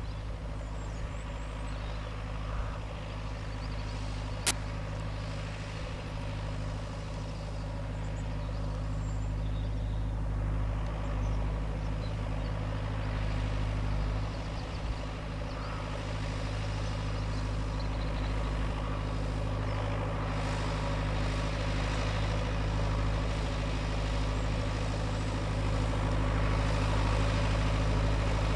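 Lamborghini R.4 110 tractor's diesel engine running steadily under load while ploughing, gradually growing louder. A single sharp click a few seconds in.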